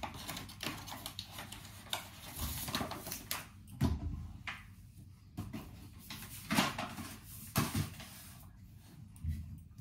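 Kitchen handling noises: scattered knocks and clicks as things are moved and set down, with a few duller thumps, one about four seconds in and two more in the second half.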